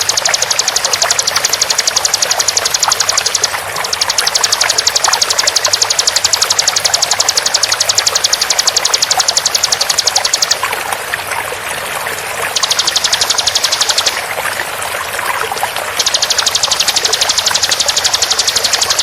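Ciblek (bar-winged prinia) delivering its 'tembakan' song: long, very rapid trills of high repeated notes in several bouts with short breaks between them. Steady running water flows underneath.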